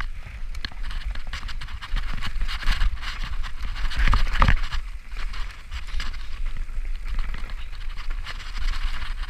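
Mountain bike descending fast over a dirt trail strewn with dry leaves: tyres crunching and skittering over leaves and loose ground, with a constant clatter of rattles and knocks from the bike and a low rumble underneath. A louder thump comes about four and a half seconds in.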